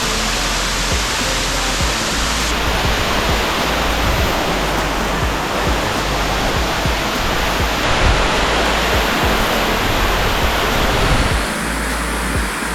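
Leke Leke waterfall's water crashing down in a loud, steady rush, its tone shifting abruptly a few times as the shots change.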